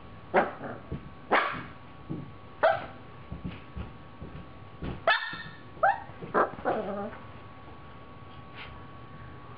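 Siberian husky puppy giving short, sharp play barks, about seven in all, several in quick succession around the middle. The barks stop about two-thirds of the way through.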